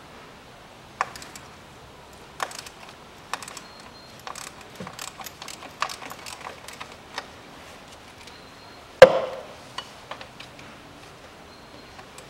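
Hand tools clicking and clinking against metal as bolts are unscrewed with a 10 mm socket: scattered, irregular clicks, with one sharp, louder metallic knock about nine seconds in.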